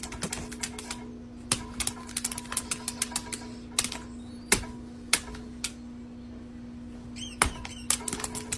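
Irregular sharp clicks and taps, sometimes in quick clusters, over a steady low hum.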